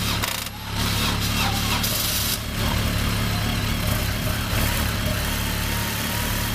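Motorcycle engine idling steadily during a jump-start from another bike.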